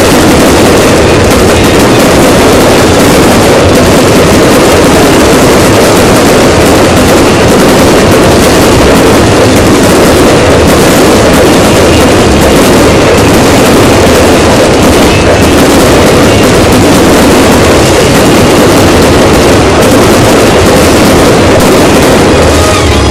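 Fireworks crackling and banging without a break, so loud that the recording is overloaded into a steady wall of noise.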